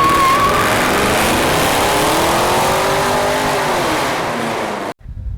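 A car engine revs as the car speeds past, its pitch rising and then falling, and cuts off abruptly about five seconds in.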